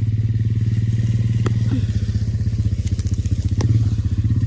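Four-wheeler (ATV) engine idling steadily, with a few sharp clicks or snaps over it.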